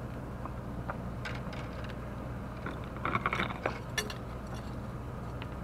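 Light clicks and a short rattling clatter about three seconds in, with one sharp click just after, as a small fish on a fishing line and its rig are handled on a concrete pier, over a steady low hum.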